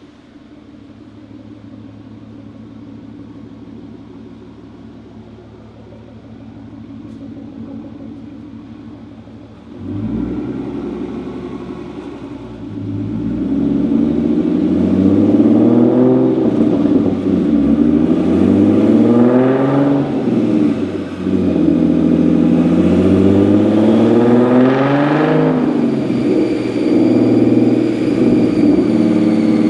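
Twin-turbo 3.7-litre V6 Mustang engine on a chassis dyno, idling at first, then from about ten seconds in running hard under load, its pitch climbing and dropping several times. A thin high whistle falls away near the end.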